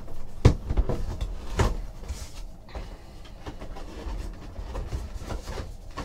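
Clear plastic mini-helmet display case handled and set down on a table, with a few knocks and clacks of plastic against the table and its cardboard box, the loudest about half a second in.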